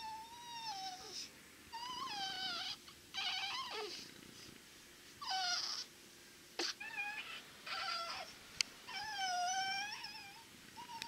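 Newborn baby squeaking in her sleep: a string of about seven short, high squeaks, each a second or less, some dipping and rising in pitch, with a sharp click or two between them.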